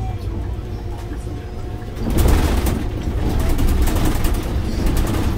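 Inside a Scania OmniLink three-axle biodiesel bus on the move: steady engine and road hum. About two seconds in it gives way to a louder rough rumble with rattling and clattering from the wheels and body as the bus rolls over a bumpy stretch of road.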